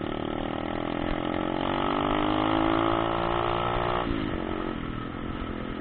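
Motocross bike engine running under throttle, its pitch rising steadily for about four seconds, then dropping sharply and holding lower.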